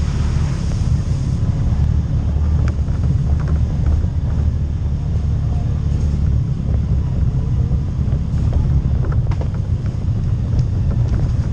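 CFMOTO CForce ATV engine running steadily while riding over a rough dirt trail, a continuous low rumble with wind buffeting the microphone. Short clicks and knocks come through now and then.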